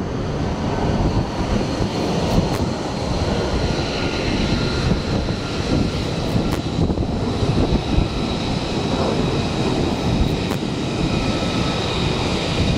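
F-35C's single Pratt & Whitney F135 turbofan running at low power as the jet taxis on the carrier deck: a steady jet rumble with a constant high whine.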